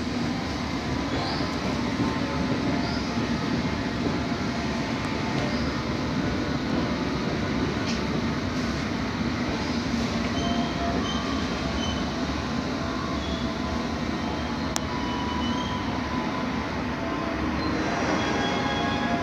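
London Underground S7 Stock train running alongside the platform: a steady rumble of wheels on rail, with short high-pitched squeaks from the train, growing a little louder near the end.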